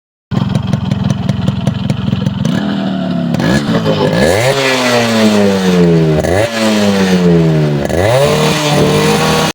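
Yamaha RX 100's two-stroke single-cylinder engine idling with a fast, even beat, then revved several times from about two and a half seconds in. Each rev rises quickly and falls back slowly.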